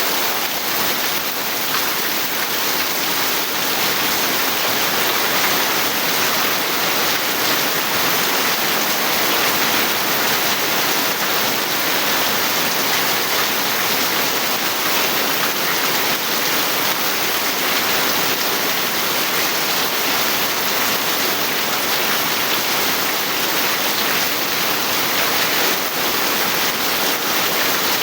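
Steady rain falling, a dense, even hiss that holds without a break.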